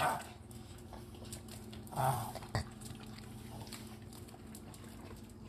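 Small dogs taking and chewing meat-stick treats, with faint clicking of claws on a tile floor and a sharp click about two and a half seconds in. A short low sound from a dog comes about two seconds in.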